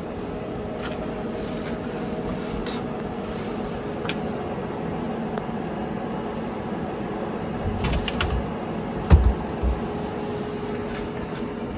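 A steady mechanical hum with a few held tones, broken by scattered light clicks and a few low thumps about eight to ten seconds in, the loudest just past nine seconds.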